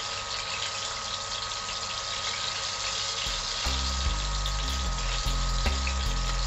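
Split dried big-eye scad (lamayo) sizzling steadily as it fries in hot oil in a stainless steel pan. Background music with a low bass beat comes in about three and a half seconds in.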